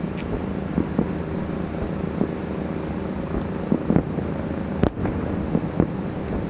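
Aerial fireworks going off: a rapid, irregular series of sharp bangs over a continuous low rumble, the heaviest cluster of bangs about four seconds in.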